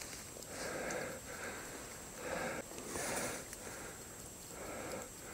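Faint, repeated soft breaths close to the microphone, a person breathing in and out.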